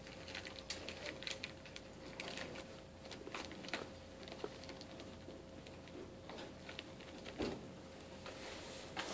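Clear plastic bag crinkling and rustling in irregular crackles as it is handled, over a faint steady hum.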